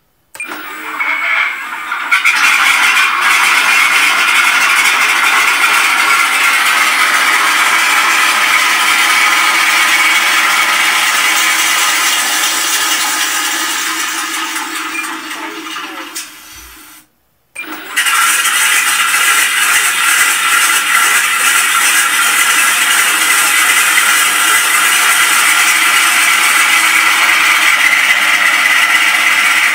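Simulated Wright Cyclone radial aero-engine sound played through the speaker of a MrRCsound Aspire sound module in a radio-controlled B-17G model. The engine sound starts up and runs steadily. A little past halfway it fades down and cuts off, then starts again about half a second later and runs steadily.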